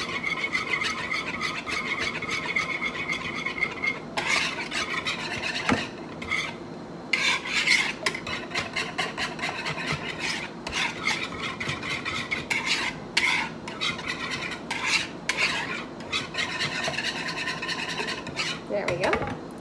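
A metal whisk stirring a thick cream of mushroom soup and milk sauce in a bowl, scraping against the sides in quick repeated strokes, with a few short pauses.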